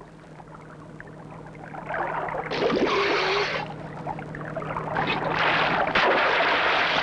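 Water splashing and churning in bursts as a swimming elephant thrashes while being roped, rising from quiet to loud in the second half, over a faint steady low hum.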